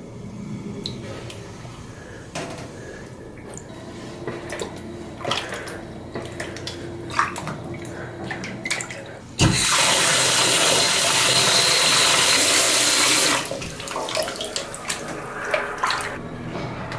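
A fabric panel being hand-washed in a stainless steel sink of water: sloshing and small splashes as a hand presses it under. About nine seconds in, a loud steady rush of running water, like a tap pouring into the sink, lasts about four seconds, then the sloshing goes on.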